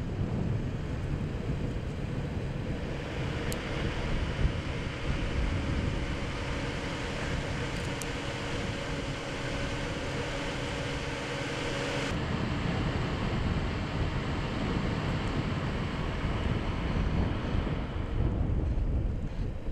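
Wind buffeting the microphone, a steady rush with gusty low rumbling. A faint steady hum runs under it through the middle, and the sound changes abruptly about twelve seconds in.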